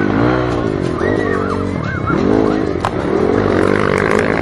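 Dirt bike engines revving up and down again and again, each rise and fall of pitch lasting about a second.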